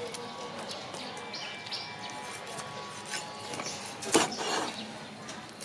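A meat cleaver chops once through a rack of raw pork ribs into a wooden cutting board about four seconds in: a single sharp knock over faint background.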